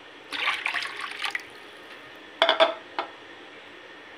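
Water poured from a bowl into whisked yogurt and gram-flour batter in a plastic bowl, splashing for about a second; then a few sharp knocks, the loudest, about two and a half and three seconds in.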